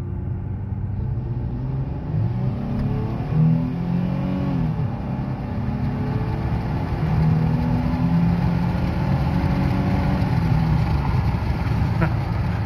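Nissan Frontier's VQ40DE 4.0-litre V6 under hard acceleration, heard from inside the cab. The engine note rises toward 5,000 rpm, drops at an upshift about five seconds in, then climbs again, with the induction noise of a 3D-printed intake tube.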